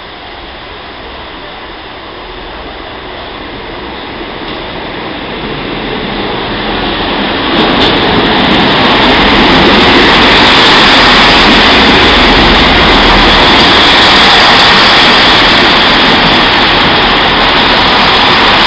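Chiltern Railways diesel multiple unit running into the platform: the rush of its wheels on the rails and its diesel engines grows steadily louder over the first ten seconds, then holds loud and steady as the carriages go past.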